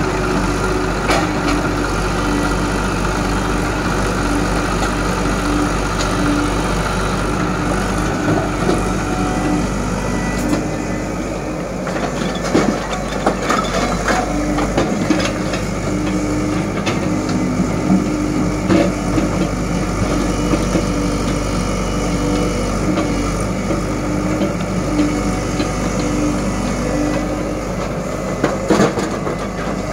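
Tata Hitachi excavator's diesel engine running steadily under load as it digs and loads. Occasional knocks and clatter of earth and stones drop into a tractor trolley.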